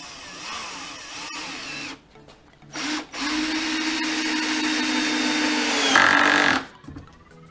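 Parkside cordless drill-driver in low gear driving a 5 × 50 mm wood screw into timber without a pilot hole. A short run, a pause and a brief blip come first, then a longer steady run that grows louder near the end and stops about six and a half seconds in. The clutch set at 12 never slips, and the screw is driven past flush.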